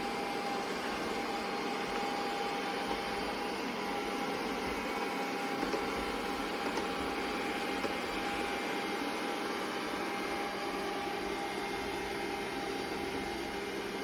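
Robot vacuum running: a steady whir of its suction fan with a constant whine on top.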